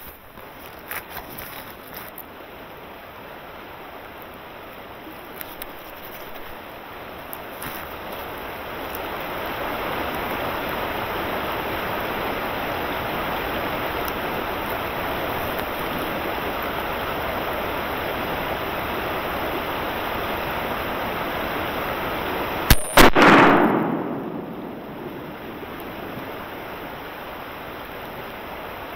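A single shot from a Savage 20-gauge shotgun about 23 seconds in, loud and sharp, its report rolling away over a second or so. A steady rushing noise runs underneath.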